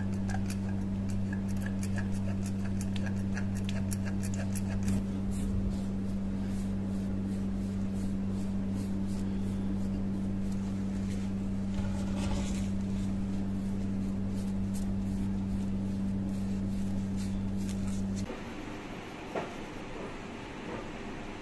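A steady low electrical hum, with quick light ticks over it for the first half. The hum cuts off suddenly near the end.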